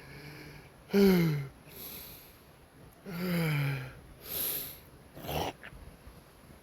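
A man sobbing: two falling, wailing cries, each followed by a gasping breath, then a short sniff near the end.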